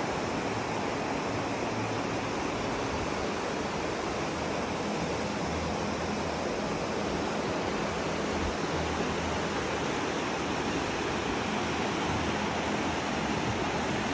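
The Aare's glacial meltwater rushing through a narrow limestone gorge: a steady, unbroken noise of fast white water.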